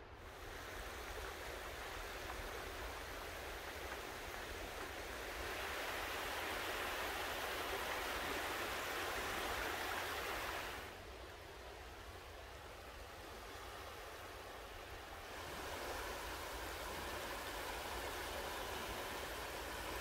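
Small waves washing in over a shallow, sandy tidal flat: a steady surf hiss that grows louder about a quarter of the way in, drops back about halfway, and rises again later.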